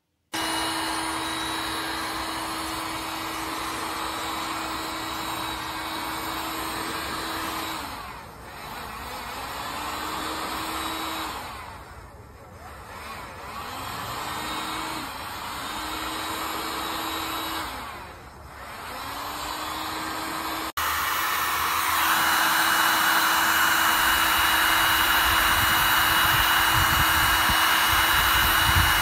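Handheld electric heat gun (SEEKONE 1800 W) blowing hot air with a steady fan hum. Three times the hum drops and slides back up as the fan slows and recovers. After an abrupt cut about two-thirds through, it blows louder with a high whine.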